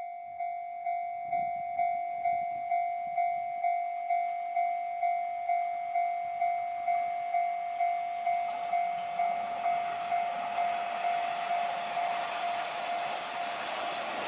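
Japanese level-crossing warning bell ringing, an electronic ding repeating about twice a second, as a JR Shikoku 1000-series diesel railcar train approaches. The train's running noise grows from about two-thirds of the way through and becomes the loudest sound as the train reaches the crossing, while the bell fades near the end.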